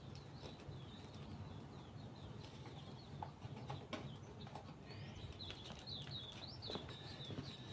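Small birds chirping, with a run of short high chirps about five seconds in, over a low steady background hum and a few faint clicks.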